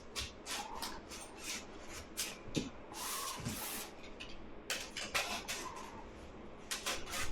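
Packaging being handled for unboxing: a run of short crackles, taps and scrapes, with a longer rubbing scrape about three seconds in.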